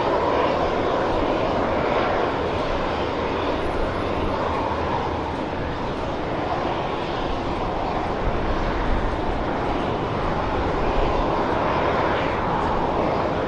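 Boeing 717 airliner's twin rear-mounted Rolls-Royce BR715 turbofan engines running with a steady jet roar.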